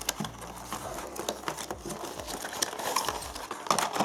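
Crinkling and rustling of packaging as the product is handled, with scattered small clicks and knocks.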